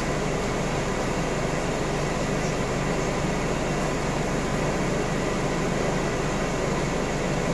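Steady drone of a Scania double-decker bus's diesel engine idling, heard from inside the lower deck while the bus stands at a stop.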